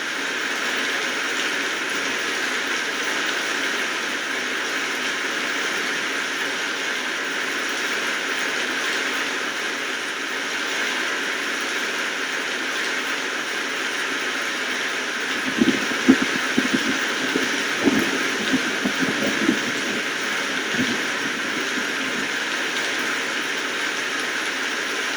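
Steady rain falling, an even hiss throughout. From about two-thirds of the way in, a scattered run of a dozen or so dull knocks stands out over the rain for about five seconds.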